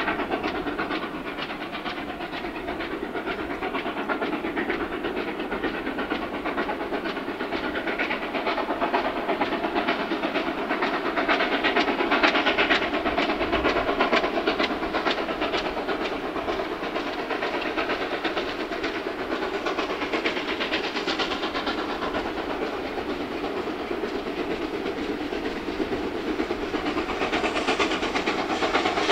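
Steam locomotive 5917, a NSWGR 59 class 2-8-2, working a train toward the listener: a steady rapid exhaust beat and steam hiss over the rumble of the train, growing a little louder near the end.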